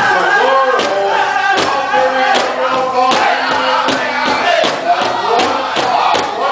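Powwow drum group: men singing together over a large powwow drum struck in unison with padded drumsticks. The beat is slow at first, about one stroke every 0.8 s, then quickens to about three strokes a second from roughly halfway.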